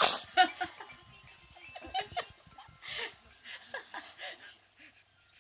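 Soft laughter in short, broken bursts, following a loud vocal burst at the very start; it fades out in the last second.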